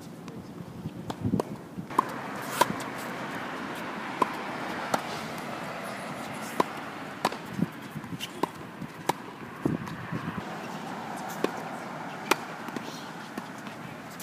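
Tennis ball being hit with a racket and bouncing on a hard court during a rally: sharp pops every second or so, over a steady background hum that comes in about two seconds in.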